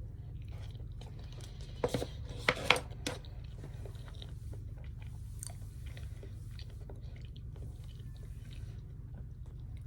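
A person chewing food close to the microphone, with a few sharp clicks about two to three seconds in. A steady low hum runs underneath.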